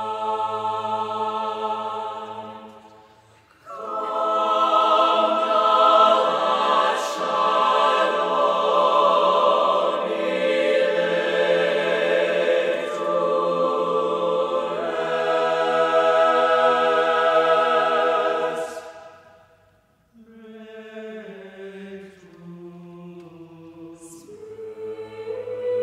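Four-part choir singing unaccompanied. A held chord fades out; about four seconds in the full choir comes in very loud and sings on for some fifteen seconds before dying away. A softer entry follows about twenty seconds in.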